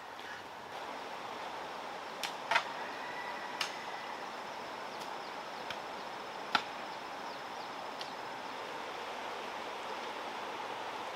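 Steady outdoor background hiss with a handful of sharp knocks or clicks, the loudest about two and a half seconds in and another about six and a half seconds in.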